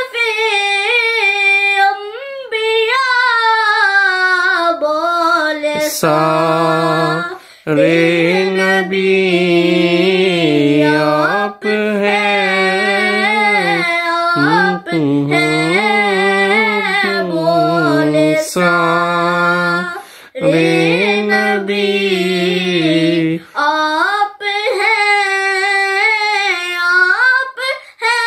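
A boy singing an unaccompanied Urdu devotional song (naat) in long melodic phrases, with short breaks for breath.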